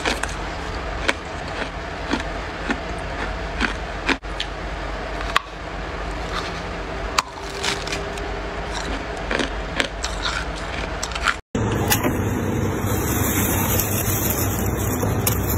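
Freezer frost crunching as it is chewed: sharp, irregular crunches over a steady hiss. About eleven seconds in the sound cuts off abruptly and gives way to a louder, steady noisy background.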